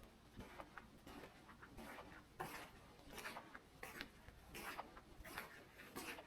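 Soft footsteps of a person walking slowly along a forest path, each step a short crunching scuff, about one every three-quarters of a second.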